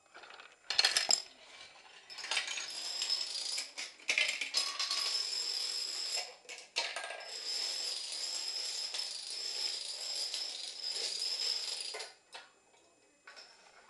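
Small plastic toy dominoes toppling one after another in a long chain: a fast, continuous clatter of light clicks that starts about a second in, halts briefly about halfway, and stops near the end after one last short run of clicks.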